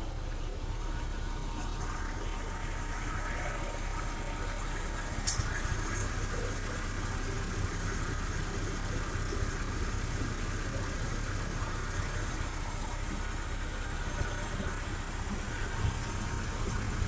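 1995 GMC Sonoma's 4.3-litre V6 TBI engine idling steadily just after starting, running well on a newly fitted TBI fuel pressure regulator. A single sharp click about five seconds in.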